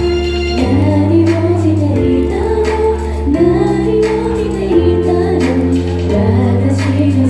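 Thai idol-group pop song: female voices singing together over held bass notes and chords, with a light beat.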